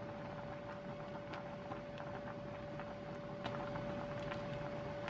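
Water boiling hard in a pot of noodles being stirred with wooden chopsticks: steady bubbling with many small pops and clicks, over a constant single-pitched hum.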